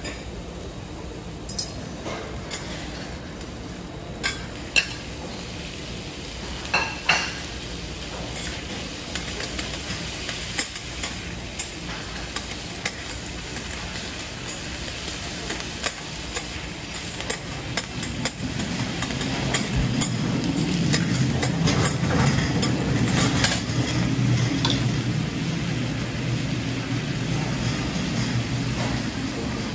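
Vegetables sizzling on a hot iron griddle while two metal spatulas scrape, tap and click against the plate as they are tossed. The sizzling grows louder in the second half.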